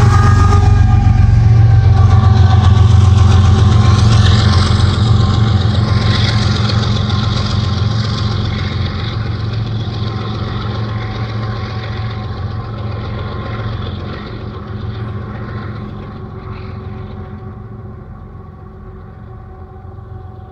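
Diesel locomotive pushing as the rear distributed power unit of a CSX container train, passing close by and then moving away. Its steady engine drone is loudest for the first few seconds and then fades away steadily.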